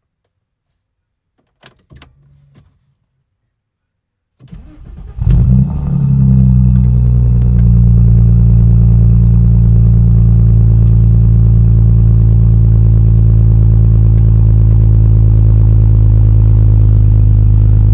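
Tuned Audi S4 B5's twin-turbo 2.7-litre V6 being started: a couple of faint clicks, then a little over four seconds in the starter cranks briefly, the engine catches with a rev flare and settles into a steady, loud idle.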